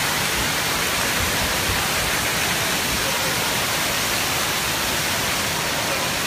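Steady loud rush of water spraying and pouring down over a water-park play structure, an even hiss with no breaks.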